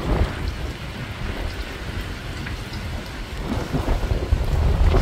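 Wind buffeting the microphone: a gusty low rumble that rises and falls, easing in the middle and growing louder again near the end.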